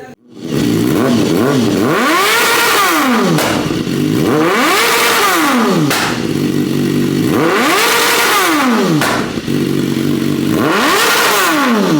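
BMW motorcycle with an aftermarket Akrapovič exhaust starting, then revved four times, the engine pitch rising and falling with each blip between idling stretches; very loud.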